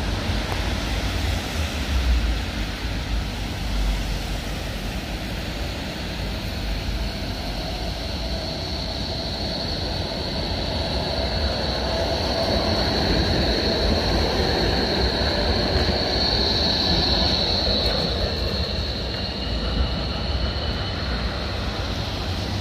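A long multi-section low-floor tram passing close by on a street track, its running noise rising to a peak past the middle with a steady high whine, then easing off. Car tyres hiss on the wet road under a low traffic rumble.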